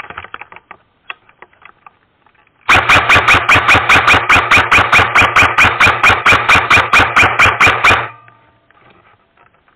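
A loud burst of evenly spaced sharp bangs, about four a second for some five seconds, over a steady low hum. It starts and stops abruptly.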